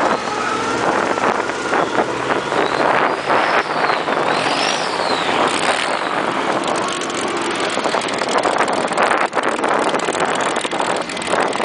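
Swamp buggy engine running steadily while the buggy drives across a grassy field, heard from on board. A faint high whine rises and falls twice about three to five seconds in.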